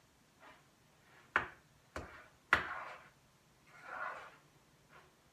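Mixing shortcrust pastry dough in a bowl: three sharp knocks against the bowl in about a second and a half, with soft scraping sounds before and after.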